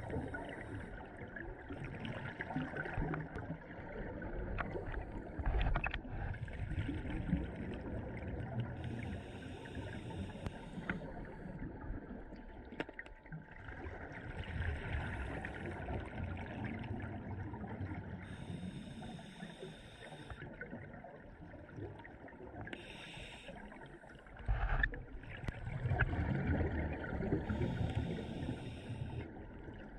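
Scuba diver breathing through an Apeks regulator underwater. Hissing inhalations come about every four to five seconds, each followed by a low rumbling gurgle of exhaled bubbles, over several breath cycles.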